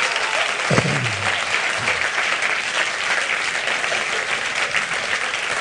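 Audience applauding, a dense even clapping throughout, with a short low voice sound about a second in.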